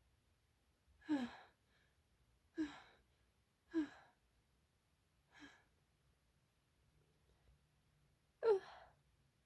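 A person with a cold sneezing five times: three strong sneezes about a second apart, a weaker fourth, then after a pause of about three seconds a last, loudest one. Each is a short, sharp burst with the voice dropping in pitch.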